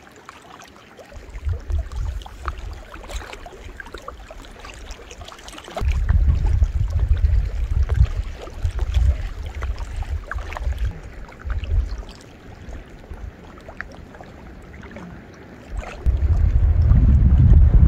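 Wind gusting across the microphone in deep rumbling buffets. It starts about a second in, grows stronger about six seconds in, eases around twelve seconds and comes back strongest near the end. Small waves lap faintly underneath.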